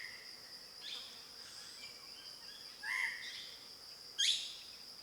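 Forest ambience: a steady high-pitched insect drone, with birds calling a few times. There are quick rising whistles about a second in and again just after four seconds, the second being the loudest sound, and a short call near three seconds.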